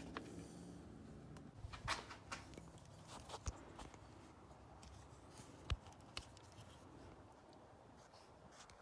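Faint scattered clicks and light taps from hands handling wiring and tools, with a few sharper ticks about two, three and a half, and six seconds in.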